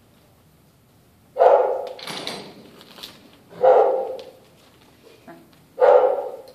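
A large dog barking three times, about two seconds apart, each bark loud and deep. A shorter, higher, noisier sound follows right after the first bark.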